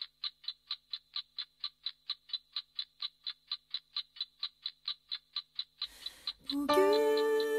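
Fast, even clock-like ticking, about four or five sharp ticks a second. It stops near the end as music comes in with held notes.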